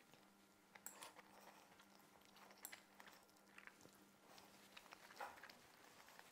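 Near silence with faint eating sounds: a fork clicking and scraping on a plate, and soft chewing, over a faint steady hum.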